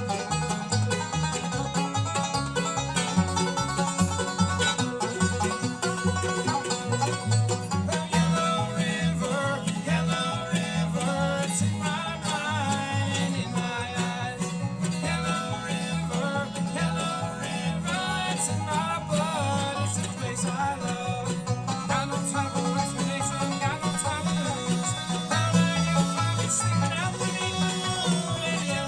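Bluegrass band playing an instrumental passage: rapid banjo picking over strummed guitar and a steady, even bass line.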